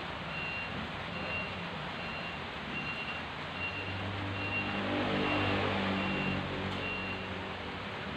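A vehicle's reversing alarm beeping evenly, a little more than once a second, over a low engine-like rumble that swells in the middle.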